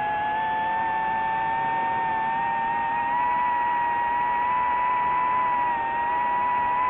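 Electric motor and propeller whine of a remote-controlled aircraft, heard from its onboard camera: a steady high whine that climbs slightly in pitch over the first few seconds, dips briefly near the end, then rises again.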